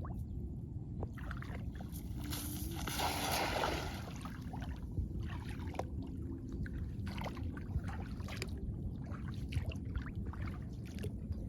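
Water splashing and sloshing around a small boat, over a steady low rumble. A louder rush of splashing comes between about two and a half and four seconds in, with scattered small splashes and knocks after it.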